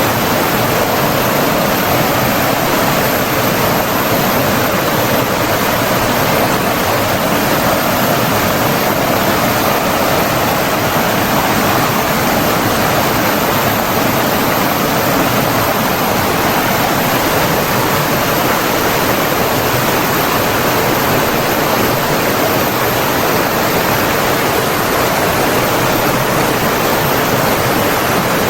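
Flowing water rushing steadily, an even, continuous wash of sound with no pauses.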